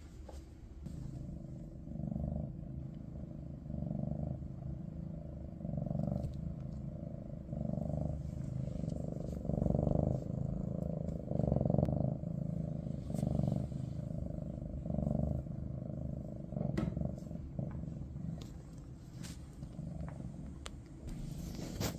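Maine Coon cat purring close to the microphone, the low rumble swelling and easing with each breath about every two seconds.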